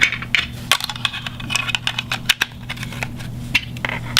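Light plastic clicks, taps and rattles from the CT100 thermostat's housing and battery compartment being handled, irregular and sharp, over a steady low hum.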